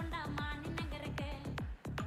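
Recorded electronic dance track playing for a dance performance: a fast, even beat of deep kick drums that drop in pitch, with a melody over it. The beat cuts out for an instant near the end.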